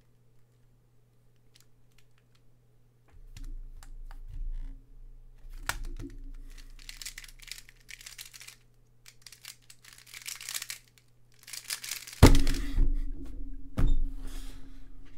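Square-1 puzzle being solved at speed: quick bursts of plastic layers clacking and scraping as they are turned and sliced. About twelve seconds in comes a loud thump as the puzzle is put down and both hands slap onto a Speed Stacks timer to stop it, with a smaller knock a little later.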